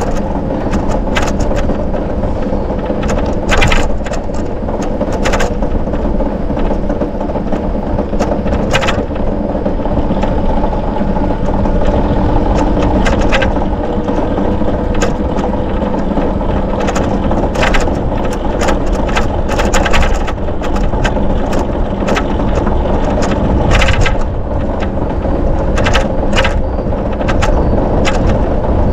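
Bicycle riding along a park road: a steady rolling rumble with a faint hum, and frequent irregular clicks and rattles from the bike over bumps.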